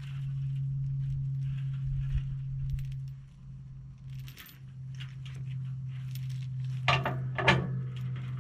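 Heavy steel chain clinking and rattling as it is handled, with two sharp clanks about seven seconds in. Under it is the steady low hum of an idling engine.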